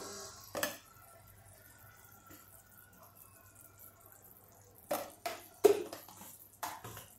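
A spoon stirring tamarind pulp into a frying pan of curry. It is mostly quiet, with one sharp clink of the spoon against the pan just after the start and a quick run of about five clinks near the end.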